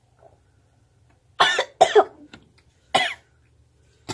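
A person coughing three times, short hard coughs, choking on the spicy ginger soda just chugged.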